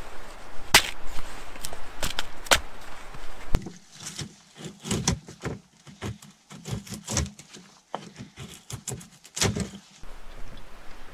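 Fiskars X5 hatchet chopping small logs of split wood: one sharp chop about a second in and three more close together around two seconds in. Then the hatchet splits kindling, a quicker run of lighter knocks and wood cracking from about four to ten seconds.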